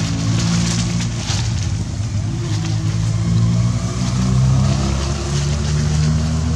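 An engine running steadily out of sight, its low hum shifting slightly in pitch a few times.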